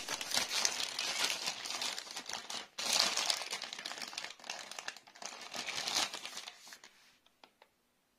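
Plastic potato bag with a mesh window crinkling as it is handled, in dense bouts with a short break about two and a half seconds in. It dies away to a few faint rustles near the end.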